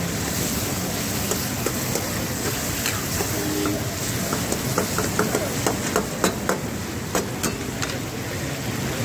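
Steel ladle stirring chicken karahi in an iron karahi wok, scraping and clinking against the pan, over steady background noise. A run of sharp metal clinks comes between about four and eight seconds in.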